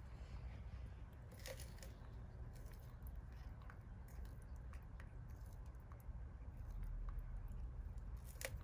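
Leopard tortoises biting and chewing lettuce leaves: scattered crisp crunches and snaps, loudest about a second and a half in and again near the end, over a steady low hum.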